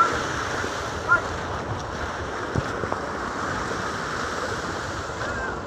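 Steady rush of wind and choppy open-sea waves, with wind buffeting the microphone. Two short high chirps sound near the start and about a second in.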